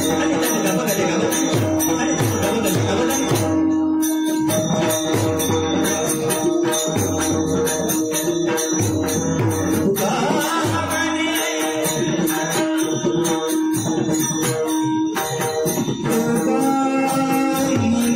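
Chakri bhajan devotional music: chanted singing over jingling hand cymbals, steady low drum strokes and a held drone tone.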